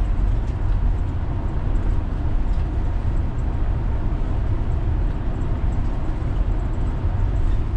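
Steady rumble of road and engine noise inside a vehicle's cabin while driving, heaviest in the low end.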